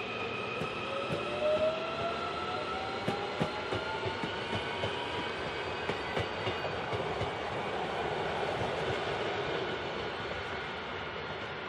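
Incheon Subway Line 1 electric train running past, its motors giving a whine that rises in pitch over the first few seconds. Its wheels click irregularly over the rail joints beneath a steady rumble.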